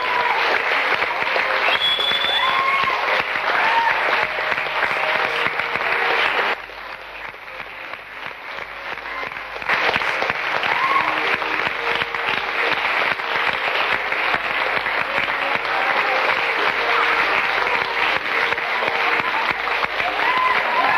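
Audience and cast applauding, a dense steady clapping with a few whoops and shouts. The applause drops lower for about three seconds partway through, then comes back up to full strength.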